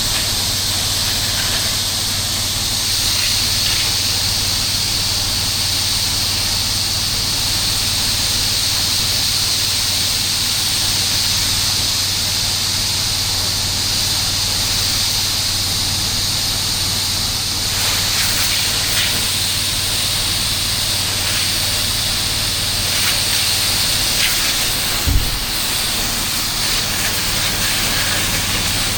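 Pressure-washing rig running: a steady engine-driven pump hum under the continuous hiss of water spraying from a hose, with one brief thump near the end.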